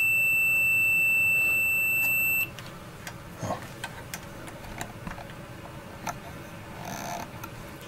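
Digital multimeter's continuity beeper sounding one steady high-pitched beep for about two and a half seconds, then cutting off sharply; a few faint clicks follow. The beep means the probes are across fuse clips that are wired to a common point, so the meter reads a short.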